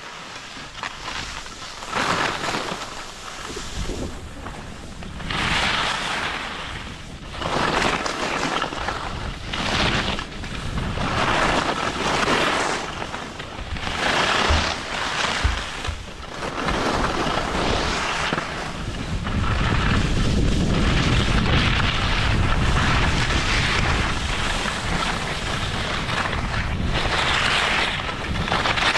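Skis scraping over hard, icy snow through a series of turns. Each turn is a swelling hiss that comes and goes every second or two, then the noise turns steadier in the second half, with wind rumbling on the microphone.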